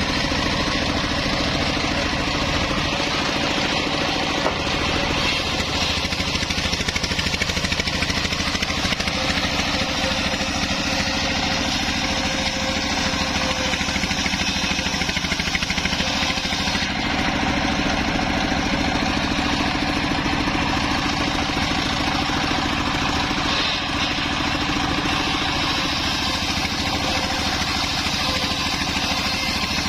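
The engine of a homemade circular saw rig running steadily at an even speed.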